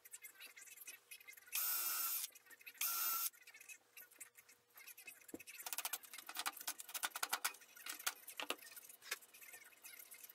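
Cordless drill-driver whirring in two short bursts, then a long run of rapid clicks as it drives screws into small plywood blocks.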